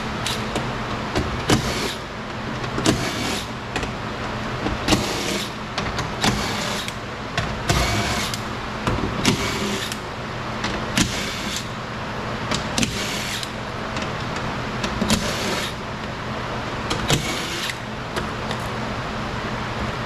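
A cordless drill-driver running in short bursts, about a dozen in all, as it backs screws out of a car door's inner frame.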